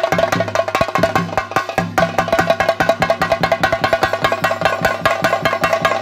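Rapid chenda drumming in a dense, fast rhythm, the ritual percussion of a theyyam, with a steady ringing tone above it. The strokes break off briefly about two seconds in.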